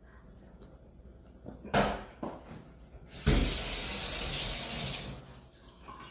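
Kitchen faucet turned on full and running into a steel sink for under two seconds, then shut off, dousing a wooden stirring stick that had caught fire. A sharp knock comes just before the water.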